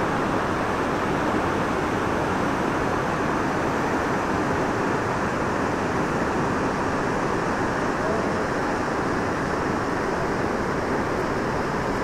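A waterfall rushing steadily: an even, unbroken wash of water noise that neither rises nor falls.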